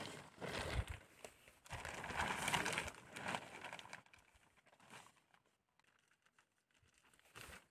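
Tarp or plastic sheeting crinkling and rustling as it is handled while the tent is put up, loudest in two spells over the first few seconds, then softer, with a brief burst near the end.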